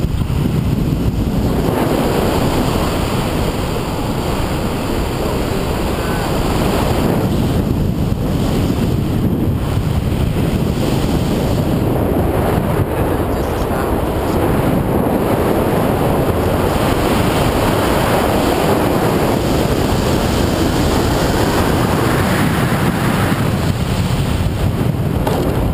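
Wind buffeting the camera's microphone in flight under a tandem paraglider: a loud, steady rush of noise that swells a little now and then.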